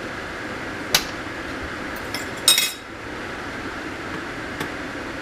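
Metal fork clinking on dishes: one sharp clink about a second in, a louder short clatter about two and a half seconds in, and a faint tap near the end, over steady fan noise.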